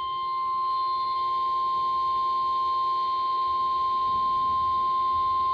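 NOAA Weather Radio 1050 Hz warning alarm tone: one steady, unbroken high-pitched tone. It is the alert signal that comes just before a new weather warning is broadcast.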